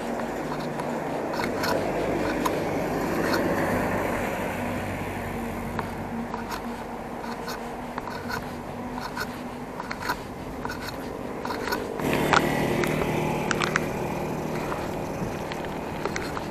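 Road and wind noise of a bicycle being ridden along a highway, a steady rush with scattered small rattles and clicks. A low steady hum runs underneath, and a louder hum joins about twelve seconds in.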